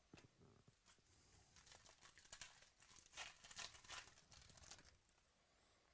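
Faint crinkling and tearing of a foil trading-card pack wrapper being handled and opened, in uneven rustles that build up toward the middle.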